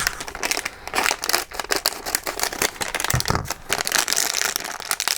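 Crinkling and rustling of a plastic toy blind-pack wrapper being handled and opened.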